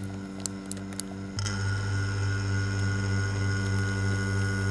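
Small electric vacuum pump running steadily, pulling vacuum on a bagged infusion layup that still has leaks. A few light clicks of plastic being handled come in the first second, and about a second and a half in the hum becomes louder and fuller.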